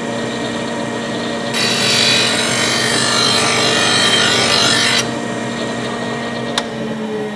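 Electric blade sharpener running while the end of a lawnmower blade is ground against it. A harsh grinding noise lasts about three and a half seconds and then cuts off, leaving the machine running with a short click near the end. The grinding is metal being taken off one end of the blade to bring it into balance.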